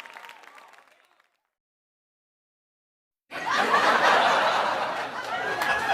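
Crowd applause fades out, then after about two seconds of silence a crowd of people starts laughing suddenly and keeps laughing.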